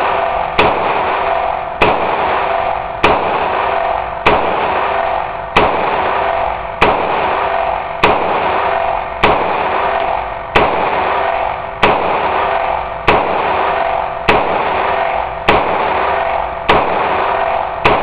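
AR-15 with a 9mm conversion fired semi-automatically in a slow, steady string of about fifteen shots, one every 1.2 seconds or so, with the action cycling each round without a hang-up. Each shot leaves a loud, lingering echo that barely fades before the next.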